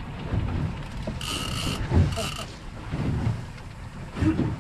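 Wind and water noise on a small open fishing boat under way at sea, with two short, high mechanical whirs about a second and two seconds in.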